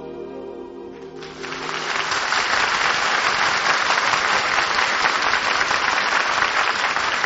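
The song's last held note, sung over the orchestra, ends about a second in. Studio audience applause then breaks out and swells, staying loud.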